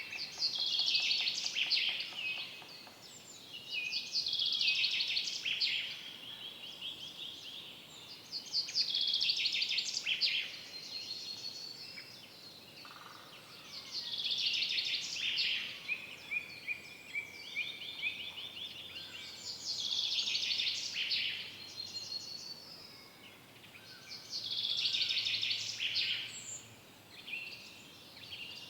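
Songbirds singing in woodland, with a trilled song phrase of rapid notes repeated about every four to five seconds over a faint steady background hiss.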